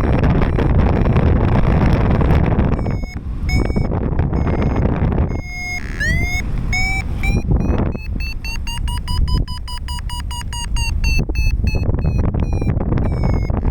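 Paragliding variometer beeping its climb tone: a string of short beeps, each gliding up in pitch, coming fast in the middle as the glider climbs. Wind rushes on the microphone under the beeps and is loudest in the first few seconds and again near the end.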